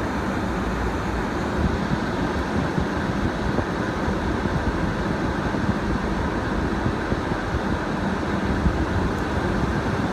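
Off-road 4x4's engine and drivetrain running at crawling speed, heard inside the cab, with a steady low rumble and frequent small knocks as the vehicle bumps over the rutted, muddy track.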